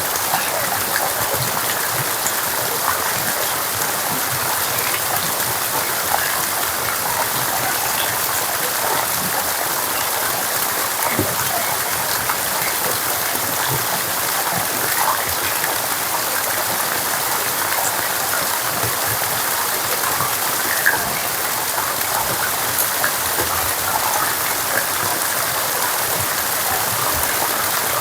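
Steady rain falling: a dense, even hiss with many scattered individual drop hits.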